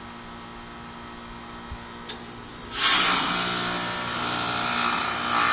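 1996 Bryant 3-ton heat pump's outdoor unit humming steadily in defrost, then a click about two seconds in and, just before three seconds, a sudden loud hissing whoosh that slowly eases: typical of the reversing valve shifting back as the defrost cycle ends.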